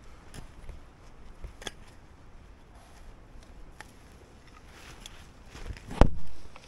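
Shovel digging in soil: scattered scrapes and knocks, with one loud thud about six seconds in.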